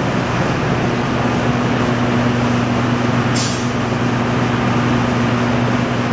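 Steady, loud drone of machinery in an underground tunnel, with a constant low hum, and a brief hiss about three and a half seconds in.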